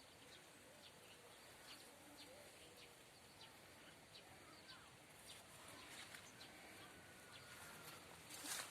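Near silence outdoors, with faint distant bird chirps scattered through it and a brief rustle near the end.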